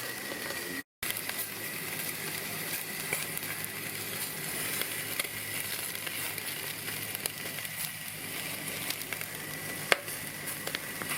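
Marinated lamb cutlets sizzling on a barbecue grill: a steady hiss with small scattered pops and crackles. It breaks off for a moment just under a second in.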